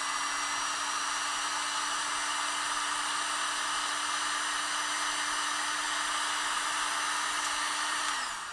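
Electric heat gun running steadily, its fan blowing with a steady motor hum, heating a heat-shrink butt connector so the sleeve shrinks around two spliced wires. It is switched off near the end and winds down.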